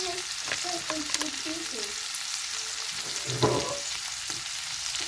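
Beef, onion and vegetables sizzling steadily in a frying pan, with a few light clicks and a louder knock about three and a half seconds in.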